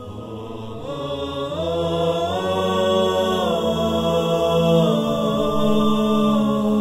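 Wordless vocal chant, an a cappella intro theme: sustained voices gliding slowly between notes over a steady low held tone, swelling after about a second.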